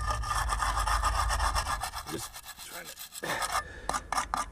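Small wire brush scrubbing the metal tip of a 1984 Ford LTD's distributor rotor clean. It starts with rapid back-and-forth scratching for about three seconds, then gives a few slower, separate strokes.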